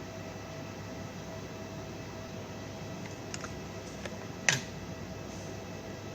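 A few short clicks over a steady hiss and faint hum, the loudest a single sharp click about four and a half seconds in.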